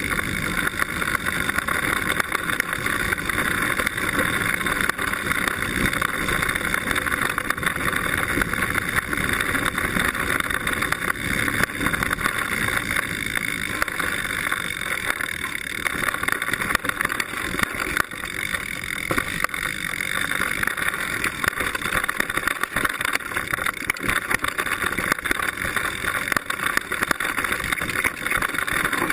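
Mountain bike rolling fast down a gravel and dirt trail: a steady rushing tyre and wind noise with a constant irregular clatter of small knocks and rattles from the bike, picked up through a camera clamped to the seatpost.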